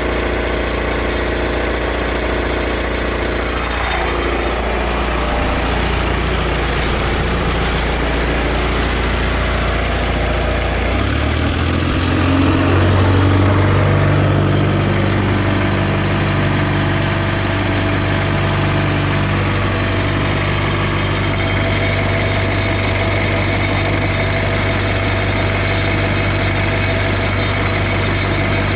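John Deere stationary engine running an irrigation pump, running steadily, then speeding up about eleven seconds in as its low hum steps up in pitch.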